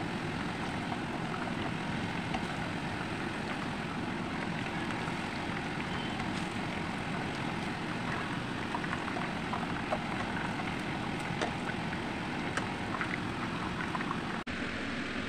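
Chicken wings frying in hot oil in a pan: a steady sizzle with scattered sharp crackles and pops. The sound briefly drops out near the end.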